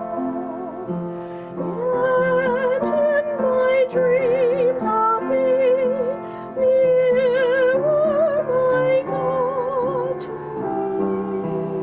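A solo singer in a classical style, singing a slow melody with wide vibrato on long held notes, over sustained instrumental chords.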